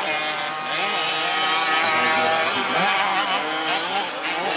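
Small motocross bike engine revving, its pitch rising and falling as the throttle is worked on the dirt track.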